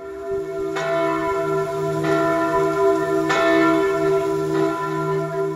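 Church bells ringing in a tower, struck again about every second and a quarter, the tones humming on between strikes.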